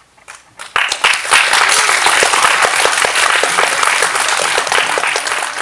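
Audience applauding: a few claps about half a second in, quickly swelling into loud, dense clapping that holds steady.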